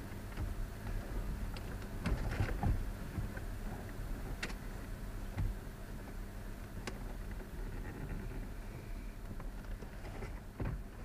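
Parts of a car's climate control unit being handled and fitted by hand: a few scattered sharp clicks and knocks, a cluster of them about two seconds in, over a low steady hum.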